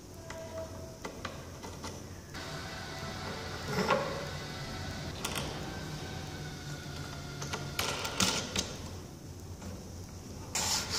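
Light clicks and taps of small plywood blocks and a metal bolt being handled and fitted together on a workbench, in scattered strikes with a small cluster near the end, over faint background music.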